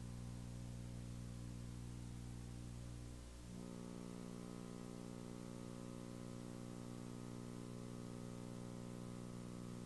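Steady electrical hum with a stack of overtones. Its tone changes abruptly about three and a half seconds in, then holds steady again.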